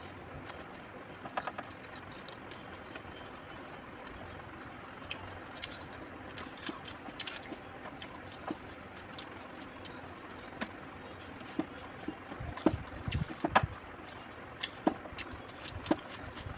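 Eating by hand: chewing and mouth clicks, with fingers squishing and mixing rice against a steel plate, as scattered short clicks. A few louder thumps come about three-quarters of the way through.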